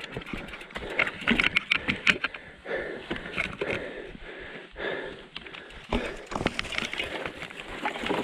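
Footsteps and the clicking and rattling of an e-bike being pushed uphill on foot over rough ground, heard as a dense run of irregular clicks and crunches.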